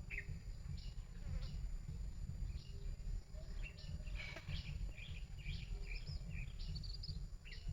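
Outdoor ambience: many short, high chirps scattered over a steady low rumble, the chirps thickest in the second half.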